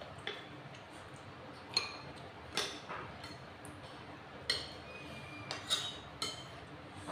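Metal spoons and forks clinking against ceramic plates and bowls during a meal: about six separate sharp clinks, each with a short ring.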